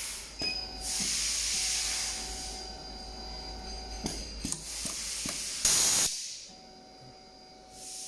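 Pneumatic automatic optical fiber stripping machine cycling: clicks of the clamp and cylinder, and compressed air hissing out as it strips the fiber. A long hiss comes about a second in, shorter hisses follow, and a short loud blast of air comes near six seconds.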